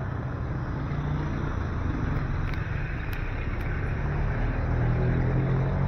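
Street traffic on a wet road: engines of passing tricycles, motorcycles and cars running over a steady hiss of tyres. A vehicle passing close gets louder near the end, and a few faint ticks sound in the middle.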